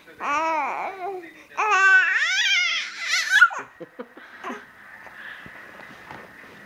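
A baby babbling and squealing in high-pitched calls that rise and fall, in two bouts over the first three and a half seconds, then only faint handling noises.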